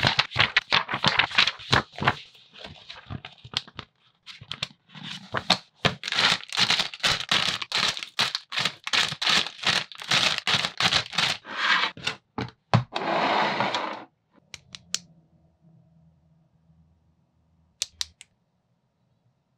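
Plastic packaging of a brick building kit crinkling and rustling as it is handled, in quick clicky bursts with a short gap about 4 seconds in. A longer unbroken rustle about 13 seconds in, then it stops, leaving only a few faint clicks.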